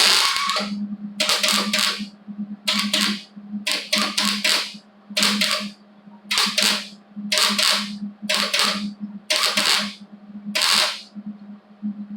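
Welder laying a run of short tack-weld bursts on car body sheet metal, about ten crackling bursts each under a second long, with a steady hum underneath.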